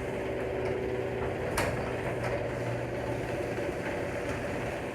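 Genie screw-drive garage door opener running steadily as it lowers the door, a motor hum with the drive rattling, and a single sharp click about a second and a half in.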